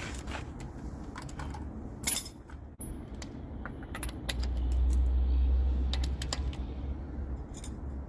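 Metal tools and loose nuts and bolts clinking and rattling as they are handled, with a sharp clank about two seconds in. A low rumble swells from about four seconds in and fades by seven.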